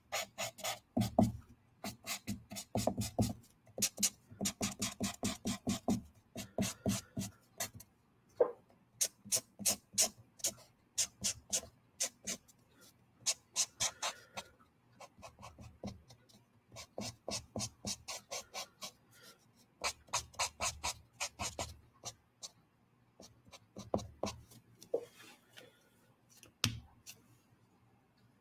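Felt-tip art marker nib rubbing over sketchbook paper in quick back-and-forth strokes, about five or six a second. The strokes come in runs with short pauses and stop near the end. The light marker is being used to blend over pencil shading.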